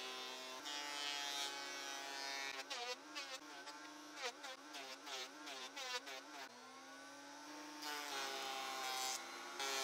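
Makita 2012NB portable thickness planer running with a steady motor whine, which wavers up and down in the middle as pine boards feed through, with several sharp knocks.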